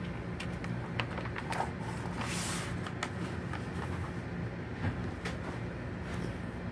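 A glossy magazine page being turned by hand: a brief paper swish about two seconds in and a few light clicks of fingers on the paper. A steady low mechanical hum runs underneath.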